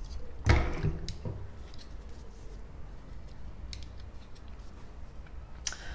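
Handling of a small circuit board on a wooden tabletop: a thud as it is set down about half a second in, then a few faint clicks over a low steady hum.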